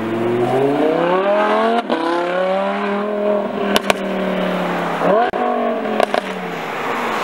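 Lamborghini Huracán's V10 accelerating away, its engine note climbing steadily with a gear change just before two seconds. A couple of sharp exhaust pops come near four seconds, and the revs jump up again just after five seconds.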